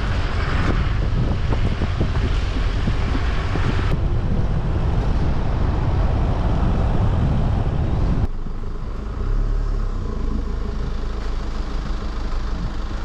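Pickup truck driving slowly over a potholed dirt road: steady tyre and road rumble with repeated knocks and rattles as it goes through the holes. About eight seconds in, the noise suddenly falls to a lower, steadier rumble.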